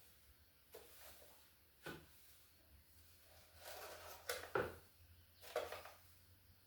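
A few short knocks and clatters of kitchen things being handled and set down, a cluster of them about four seconds in, over a faint steady hum.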